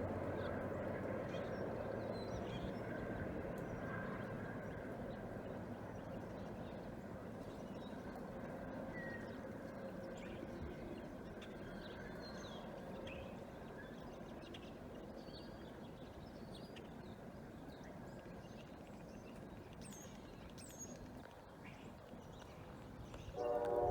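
Diesel freight train with locomotives at both ends receding after passing, its rumble slowly fading away. Faint high chirps sound over it.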